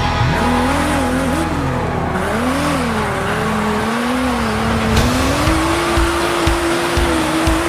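Electric motor of a remote-control off-road toy car whining, its pitch rising and falling as the throttle is worked, then holding steady near the end.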